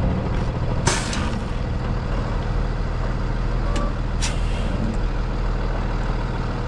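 Peterbilt 337 rollback's diesel engine running steadily at low speed, with a short sharp air-brake hiss about a second in and two briefer hisses around four seconds in.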